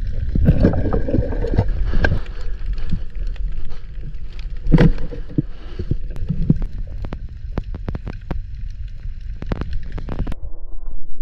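Underwater sound picked up by a free diver's camera: a steady low rumble of water moving around the housing, with many scattered clicks and crackles. A higher hiss drops away near the end.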